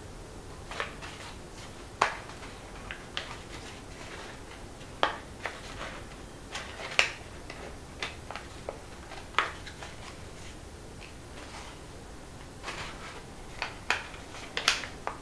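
Folded origami paper crackling and rustling in brief, irregular clicks as one tubular paper unit is pinched and pushed inside another.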